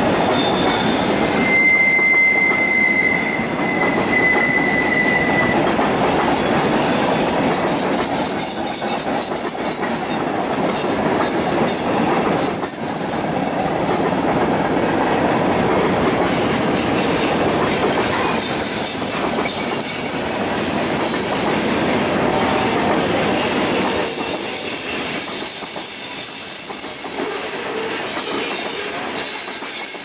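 Norfolk Southern freight train rolling past, a steady noise of steel wheels on the rails. A high, steady wheel squeal sounds from about a second and a half in and lasts about four seconds.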